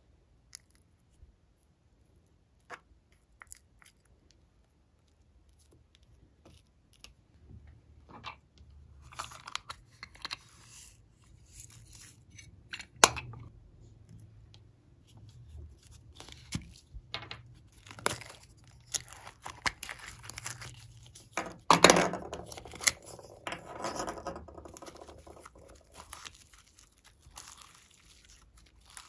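Glossy slime being handled, with sticky crackling and popping as it is pulled and stretched, and sharp clicks. It is almost silent at first apart from a few small clicks, then the crackling sets in about seven seconds in and is loudest a little past the twenty-second mark.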